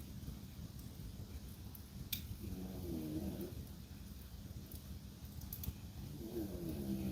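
French bulldog snoring twice, each snore a wavering pitched drone about three and a half seconds after the last, over a wood fire crackling with scattered sharp pops, one stronger pop about two seconds in.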